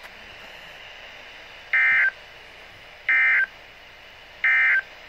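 Three short bursts of Emergency Alert System SAME digital data tones over a faint radio hiss: the end-of-message signal that closes a NOAA Weather Radio tornado warning. Each burst lasts about a third of a second, with about a second and a half between them.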